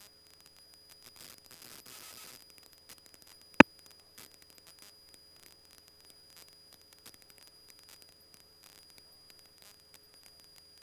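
Faint hiss and steady electrical hum of an aircraft radio audio feed between transmissions, with scattered small crackling clicks. A brief rush of static comes about a second in, and one sharp click comes about three and a half seconds in.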